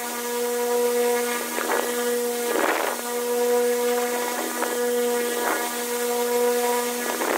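A steady mechanical hum with a clear, unchanging pitch, with a few short rasping or scraping sounds over it.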